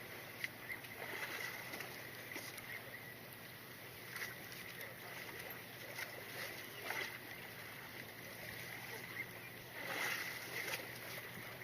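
Water sloshing and lapping against the hull of a drifting fishing boat, with a few short splashes, the strongest about ten seconds in, over a faint steady high-pitched tone.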